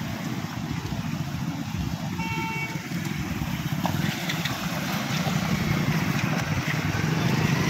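Road traffic: the engines of cars and motorcycles running as they pass on a wet, potholed street, with one short horn beep about two seconds in.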